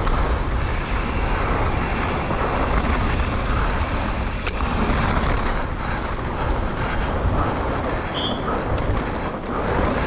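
Wind rushing over the microphone and tyres rumbling over a dirt trail on a fast mountain-bike descent, with a sharp click about four and a half seconds in.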